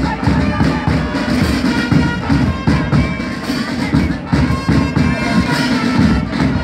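Marching band music: wind instruments holding tunes over a steady drumbeat, played for a march past.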